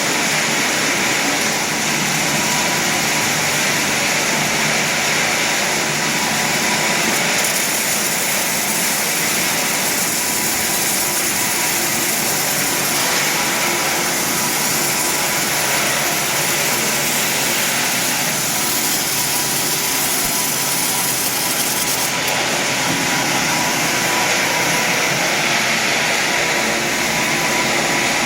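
Automatic welding machine welding a steel flange: a loud, steady hiss with machine noise beneath it.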